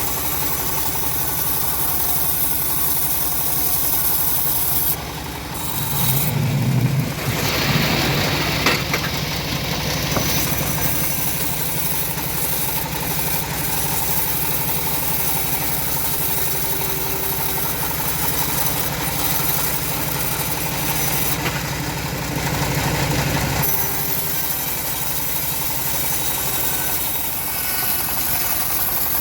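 Engine of a homemade bandsaw mill running steadily. The sound swells and grows harsher for a few seconds about six seconds in, and again around twenty-two seconds in, where it drops back suddenly.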